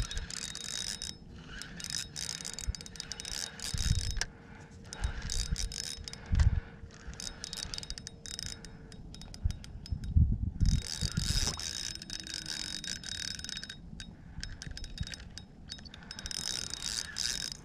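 Fishing reel being wound in while a hooked tailor is played on light gear: a rapid run of mechanical clicking and whirring from the reel, with low thumps scattered through.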